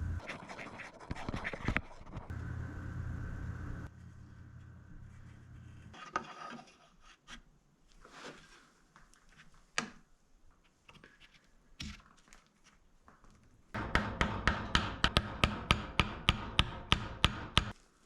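Workshop handwork during sword-making: knocks and scraping, with a steady hum for a few seconds. Near the end comes a run of about a dozen evenly spaced hammer blows on metal, about three a second, which is the loudest part.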